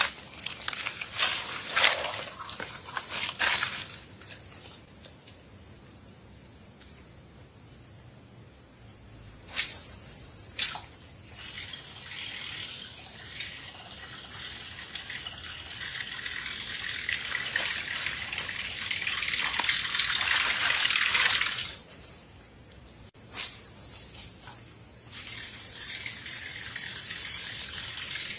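Water rushing and splashing, swelling for several seconds and then dropping off, with a few sharp splashes.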